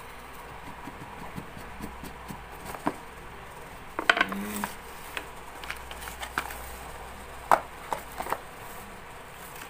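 Cardboard phone box being handled: a few light taps and clicks, with a short cluster of rustle and clicks about four seconds in as the lid is slid off, and a sharp click a few seconds later.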